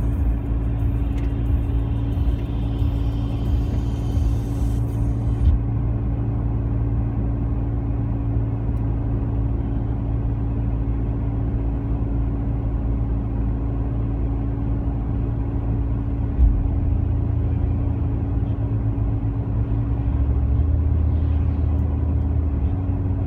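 Road noise inside a moving car: a steady low rumble of tyres and engine with a constant hum, unchanging throughout.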